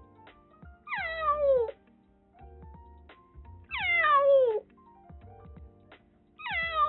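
Young brown-and-white stray kitten, freshly caught in a trap cage, meowing three times; each meow is drawn out and slides down in pitch. Soft background music plays underneath.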